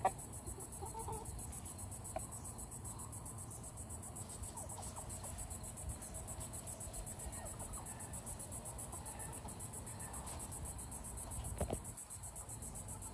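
Crickets chirping in a steady, high-pitched, evenly pulsing chorus, with a few faint chicken clucks and a short knock about a second and a half before the end.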